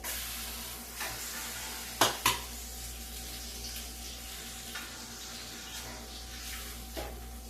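Hot pan sizzling steadily while food is lifted out for plating, with clinks of a utensil against the dishes. The two loudest clinks come close together about two seconds in.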